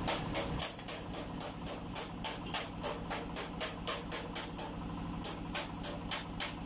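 A steady mechanical ticking, about five clicks a second, over a low steady hum.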